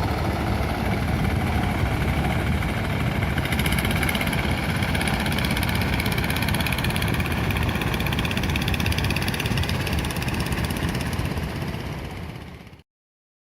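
Steady roar of ocean surf with wind noise, fading out about twelve seconds in.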